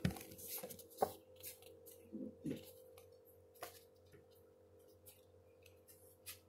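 Pages of a thin paperback book being handled and turned: a few soft paper rustles and light clicks, the clearest about a second in, over a faint steady hum.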